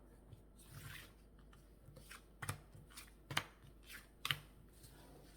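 Tarot cards being shuffled and drawn by hand, with soft sliding and a handful of sharp card snaps spread across a few seconds.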